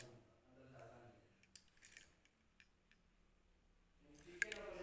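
Light clicks and small rattles of objects being handled, with a woman's voice murmuring briefly at the start and again from about four seconds in.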